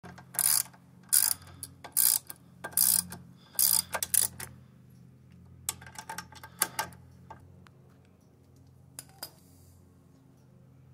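Socket ratchet wrench clicking in short rasping strokes, about one a second, as it tightens the bolts of a disc brake caliper. The strokes thin out after about four seconds and stop after about seven. A steady low hum runs underneath.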